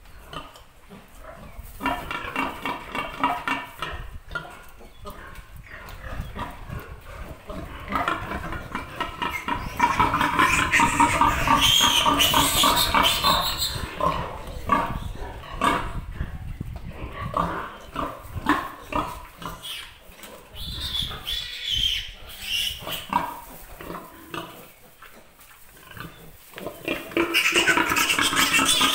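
Piglets squealing, loudest in a long stretch about ten seconds in and again near the end as one is picked up, with quieter broken squeals and grunts in between.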